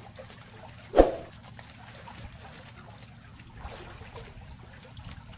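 A net bag of freshly caught shrimp, crab and fish emptied onto a plastic sheet: a sharp thump about a second in as the load drops, then water dribbling off the wet net and catch with faint, scattered pattering.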